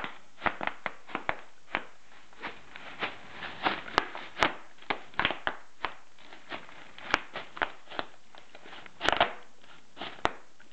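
Bubble wrap being stomped on in sneakers, popping in a rapid, irregular string of sharp pops. The loudest pops come about four seconds in and again about nine seconds in.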